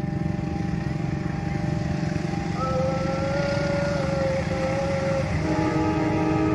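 Diesel locomotive approaching at a distance with a low, steady engine rumble. Higher, slightly wavering tones come and go over it from a little before halfway.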